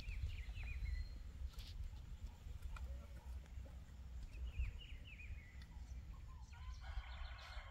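Birds chirping in short falling calls, a few at a time, over a steady low rumble. Near the end a rooster begins to crow.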